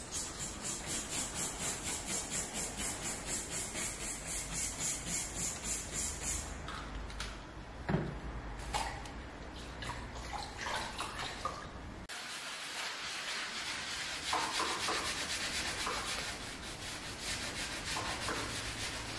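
Hand-scrubbing a wooden parquet floor in quick, even strokes, about four to five a second, with water sloshing in a washing bowl and a single knock about eight seconds in.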